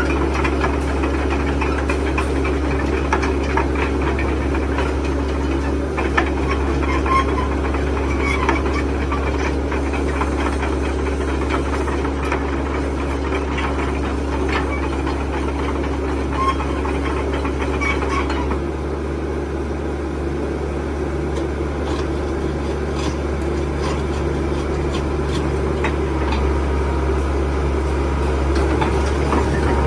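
Sany SY75C excavator's diesel engine running steadily while the boom, arm and bucket are worked hydraulically. About two-thirds of the way through, the engine note changes and a steady hum drops out.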